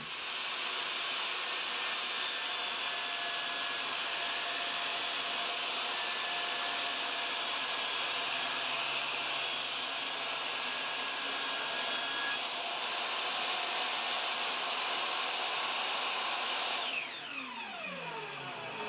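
Table saw running steadily at full speed while ripping a strip off a walnut board. Near the end the saw is switched off and the blade spins down, its pitch falling.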